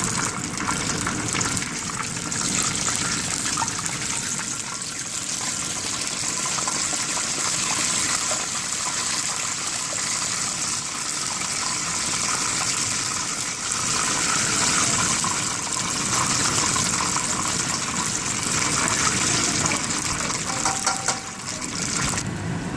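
Battered chicken breasts frying in hot oil: a steady, loud sizzle with fine crackling.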